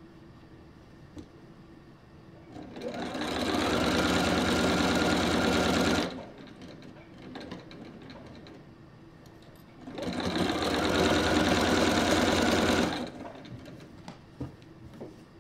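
Bernina sewing machine stitching in two runs of about three seconds each, seams being sewn through pieced quilt-block fabric. Each run picks up speed at the start, holds steady, then stops sharply.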